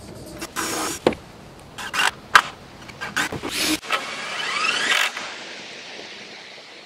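Cordless drill driving deck screws into wooden framing boards in short bursts, with sharp knocks of the boards being handled. About five seconds in, the drill motor speeds up in a rising whine and then trails off.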